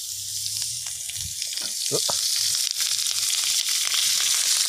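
Crumbled mam wua (Isan fermented beef sausage) sizzling in hot oil in a wok as handfuls are dropped in, the sizzle growing louder over the first couple of seconds as more meat goes in.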